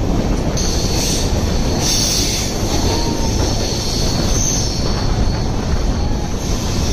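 Passenger train with LHB coaches running through rock tunnels on a curving mountain line, heard from an open coach door: a steady rumble of wheels on rail, with high wheel squeal on the curve swelling up three times.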